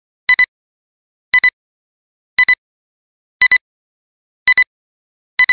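Film-leader countdown beeps: a short double electronic beep once a second, six times, with silence between.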